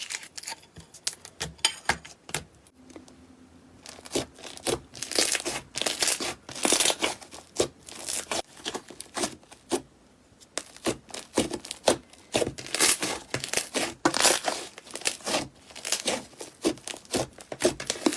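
Slime being squeezed and stretched by hand, making a dense run of irregular crackles and pops.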